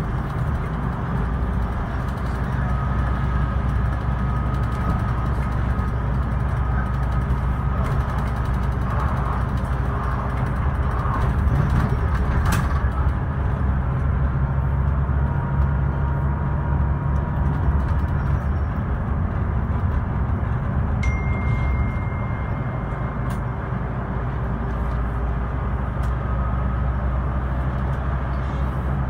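Scania K320IB bus's diesel engine running under load as heard from inside the cabin, with a steady low drone over road noise and its note changing a few times. There is a single sharp click about halfway through.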